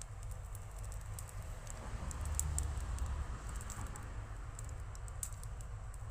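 Wood fire crackling, with scattered sharp pops over a steady low rumble that swells briefly about two seconds in.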